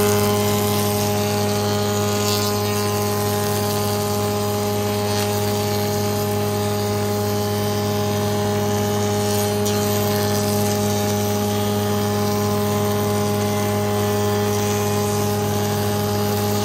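Spindle moulder and its Steff 2034 power feeder running steadily while a board is fed past the cutter and machined, a constant machine hum with several steady tones under the noise of the cutter working the wood.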